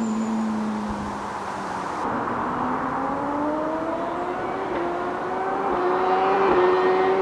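BMW S1000RR inline-four sport bike running through an Austin Racing aftermarket exhaust. The engine note eases off slightly for about two seconds, then rises steadily as the bike accelerates and grows louder.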